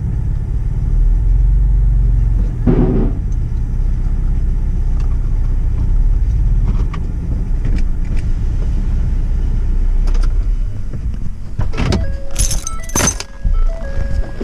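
Ford F-150 EcoBoost twin-turbo V6 running through an MBRP 4-inch cat-back exhaust, a steady low rumble heard from inside the cab, with a brief swell about three seconds in. Near the end come several sharp clunks and a repeating two-tone chime as the door is opened.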